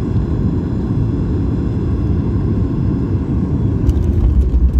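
Steady low rumble inside the cabin of a Boeing 737 MAX 8 on the ground after landing, with a couple of light clicks or rattles near the end.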